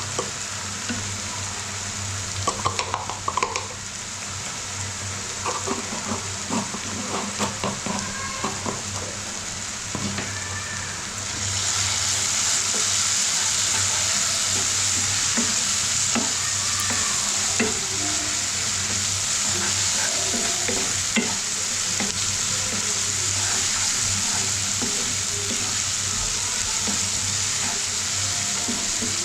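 Onion and spice masala frying in a pan, stirred with a spatula that scrapes and clinks against the pan in the first part. About eleven seconds in, the sizzling suddenly gets louder and stays loud.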